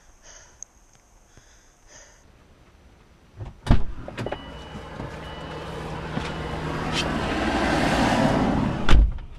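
Car door clicks open, then a rising rush of noise with rustling as someone climbs into the driver's seat, cut off by the door slamming shut near the end.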